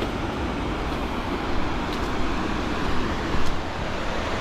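Waterfall rushing steadily, an even roar of falling water, with a few faint thumps, the strongest about three and a half seconds in.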